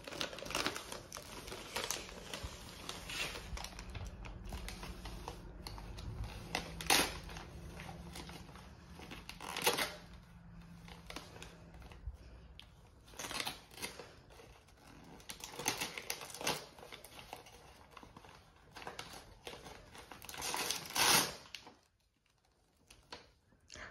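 Gift wrapping paper crinkling and tearing as a small child unwraps a present, in irregular crackly bursts, the loudest near the end.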